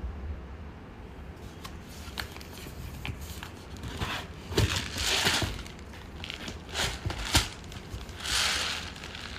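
Plastic packaging crinkling and tearing as it is handled, with scattered clicks and knocks; the rustling comes in louder bursts from about four seconds in and again near the end.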